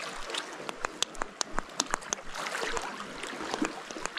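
Small waves washing and trickling against shoreline rocks, swelling a little about halfway through. Over it, a quick run of small sharp clicks in the first two seconds as fishing tackle is handled.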